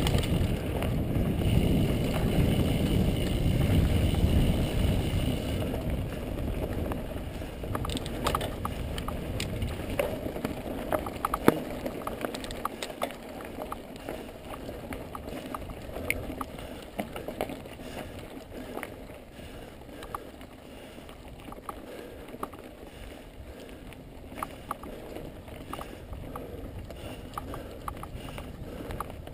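Mountain bike rolling over a rocky dirt trail, heard through an action camera: tyre rumble and wind on the microphone, loudest for the first several seconds, then quieter with many scattered clicks and rattles as the bike jolts over stones.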